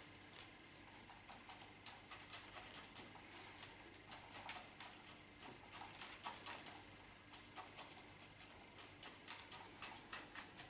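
Granular bonsai substrate, a 70-30 mix of akadama and kiryuzuna, being worked into a root ball with a chopstick: many faint, irregular small clicks and ticks as the grains rattle and settle.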